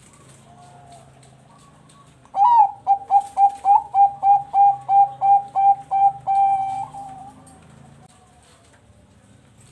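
Zebra dove (perkutut) singing: a quick run of about a dozen clipped coos starting a couple of seconds in, ending on a longer held note. Fainter single coos come before and after.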